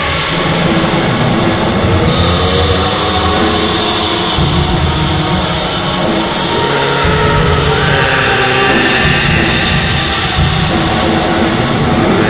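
Raw black metal: distorted guitars and a drum kit playing a loud, dense, continuous wall of sound.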